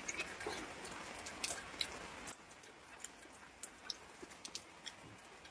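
Close-up eating sounds: a person chewing and gnawing on a braised pork hock, with irregular wet mouth clicks and smacks.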